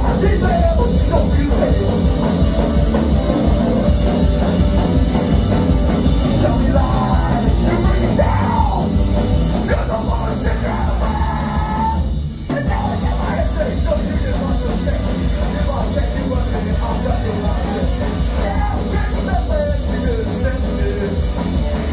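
Live rock band playing loud through the club PA, heard from within the crowd, with a shouted, yelled lead vocal over the band.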